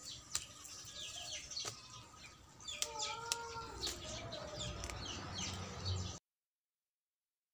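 Birds chirping and calling outdoors: many quick, high, falling chirps with a few longer calls in the middle. The sound cuts to silence about six seconds in.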